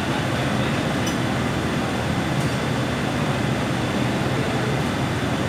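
Steady mechanical drone with a low hum, the background running noise of workshop machinery, with a couple of faint light ticks.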